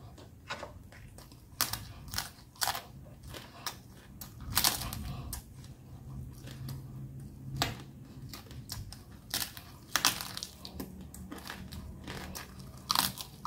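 Close-up chewing and crunching of crispy pata (deep-fried pork knuckle) skin, in irregular crisp crunches over a faint steady low hum.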